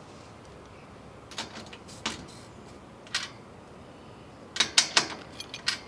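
Metal clicks and taps from a hand tool and clamp hardware as an end clamp is fitted and tightened against a solar module's frame. A few scattered clicks, then a quicker run of louder clicks near the end.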